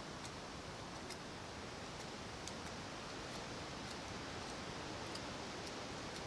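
Small wood campfire crackling: scattered faint sharp pops, one or two a second, over a steady hiss.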